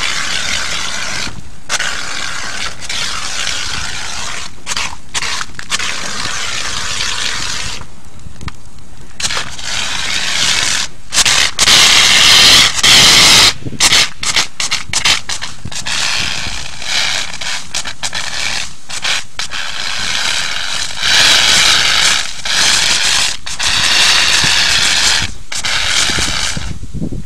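Tri-Max compressed-air foam unit discharging Class B AFFF from its handline nozzle: a loud hissing spray, shut off and reopened many times in short bursts, loudest about halfway through.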